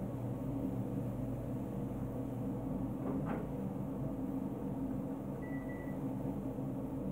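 Steady low room hum, a faint click about three seconds in, and a single short electronic beep from a microwave oven about five and a half seconds in.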